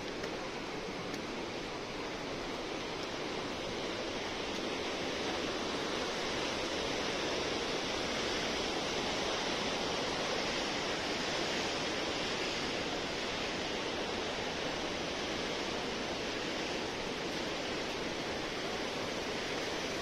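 Fast-flowing mountain water rushing steadily, an even hiss that holds throughout.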